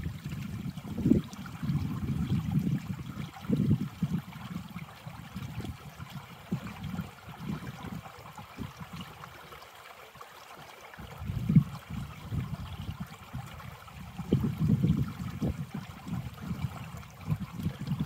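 Small creek trickling and gurgling over a shallow riffle among ice and stones. An uneven low rumble swells and fades throughout and drops away briefly about ten seconds in.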